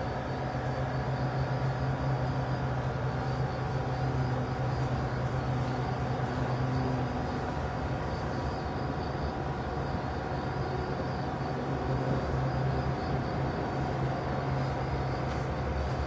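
Autumn insects singing nearby in a steady, high, thin pulsing trill. Beneath them runs a louder steady low mechanical rumble that eases slightly about seven seconds in.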